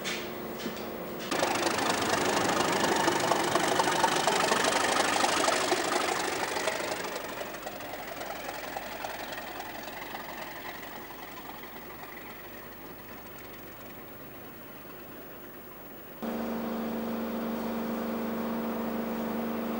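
Diesel locomotive running and pulling away, its engine and rolling noise loud at first and fading steadily over several seconds. Near the end it cuts suddenly to a steady droning hum of an idling diesel locomotive.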